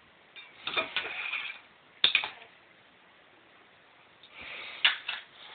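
Short clicks and clatter from cat food packaging being handled and opened: a cluster about a second in, a single sharp click near two seconds, and another cluster after four seconds.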